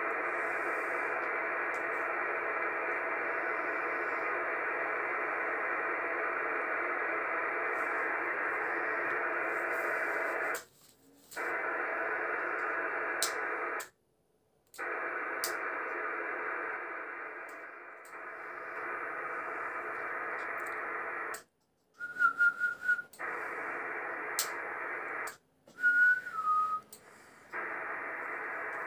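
Receiver static hiss from a Yaesu FT-450D transceiver's speaker on the 11-metre band. It cuts out to silence briefly four times as the set is keyed to transmit. In the second half come two loud short bursts, each carrying a brief whistle-like tone, the second stepping down in pitch.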